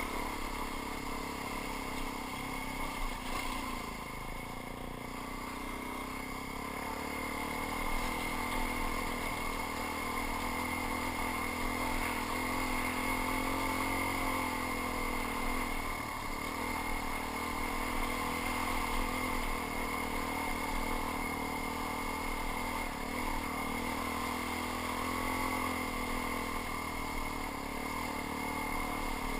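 Suzuki DR-Z400 single-cylinder four-stroke dirt bike engine running steadily on a trail ride, its revs rising and falling slightly, heard from a helmet-mounted camera.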